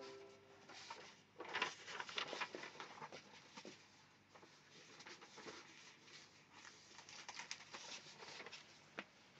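The last keyboard note dies away at the very start, then faint, irregular clicks and rustles.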